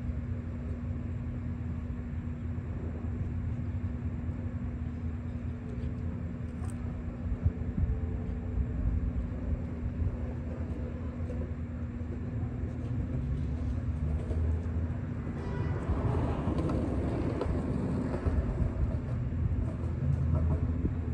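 Steady low outdoor rumble with a constant hum, and a louder rushing noise that swells and fades about three quarters of the way through.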